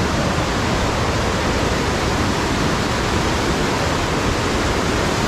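Waterfall in heavy flood, a great volume of water pouring over its first drop with a loud, steady rushing.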